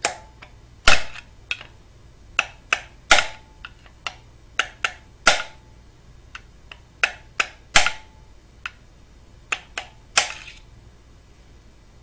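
Hammer striking a punch to knock the key out of a Subaru EJ257 crankshaft: about twenty sharp metallic taps at an uneven pace, some harder than others, several ringing briefly.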